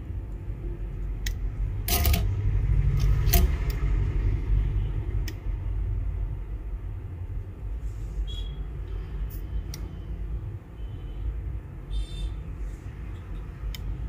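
Hot air rework gun blowing on a phone board, a steady low rumble, to melt the solder seating a new USB Type-C charging jack. A few sharp clicks of metal tools are heard over it.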